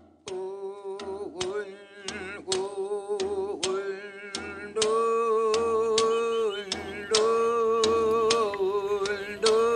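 A solo voice singing long held notes that waver and step between two pitches, over sharp regular beats about twice a second; it grows louder about five seconds in.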